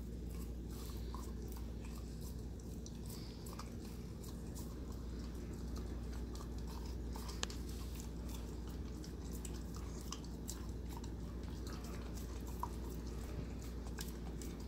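Husky puppy chewing a frozen raw chicken neck: irregular crunches and clicks of teeth on bone and meat, with one sharper crack about halfway through.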